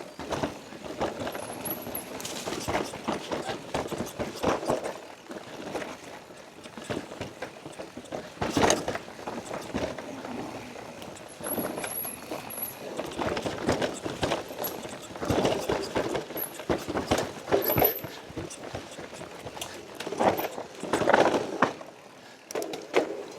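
Electric mountain bike riding down a rocky trail: tyres crunching and the bike rattling over stones, with irregular knocks and clatter that come and go.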